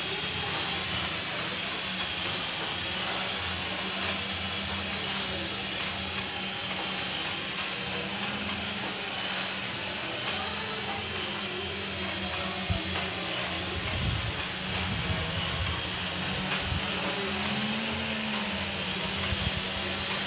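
Small quadcopter drone in flight: its electric motors and propellers give a steady buzzing whine, the pitch rising briefly near the end.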